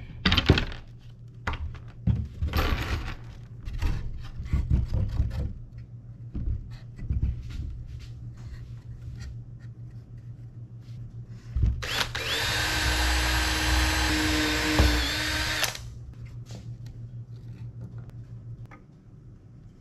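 Wooden boards knocking and clattering as they are handled, then a cordless drill runs steadily for about four seconds, driving a screw into pallet wood.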